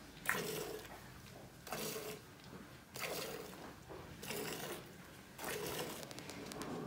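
Hand milking a cow: streams of milk squirting into a steel pot in regular spurts, a little over one a second.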